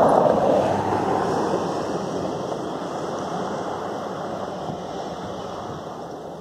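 A pickup truck driving past close by, its engine and tyre noise loudest at the start and fading steadily as it moves away.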